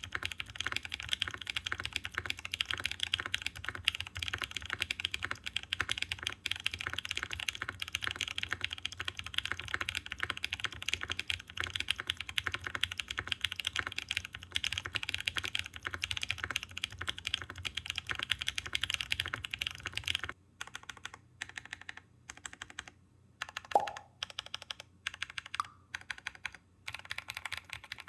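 Typing on a Mode Envoy mechanical keyboard fitted with factory-lubed BSUN Taro N Sweet Potato linear switches (POK top housing, LY stem and bottom housing), a POM plate, no foam and GMK keycaps: a deep, fairly quiet key sound. Fast continuous typing gives way about twenty seconds in to slower, separate keystrokes, one of them louder.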